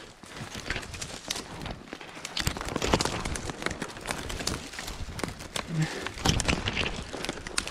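Footsteps of a person walking in wet fresh snow, a run of irregular crunching steps.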